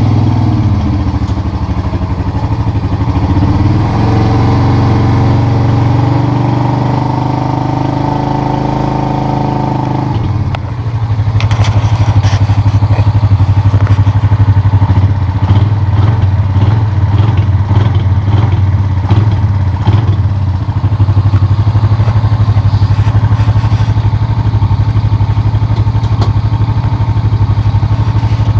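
Sharmax ATV 250 quad bike's engine running close by, steady at first. From about ten seconds in it grows louder with a fast, even throb.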